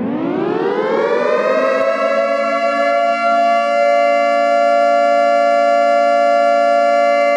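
Civil defense siren sounding a nuclear attack warning. It winds up in pitch over the first second or so, then holds a steady chord of several tones.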